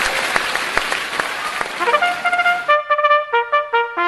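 Applause and crowd noise with scattered sharp clicks, which cuts off suddenly a little under three seconds in. About two seconds in, a brass tune of short separate trumpet notes starts and carries on.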